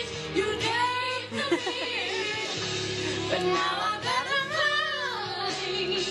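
Pop song with a female voice singing over instrumental backing.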